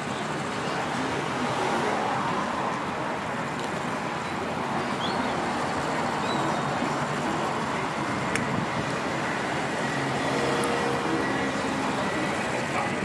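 Steady background ambience: a continuous, even rush of noise with a single faint click about eight seconds in.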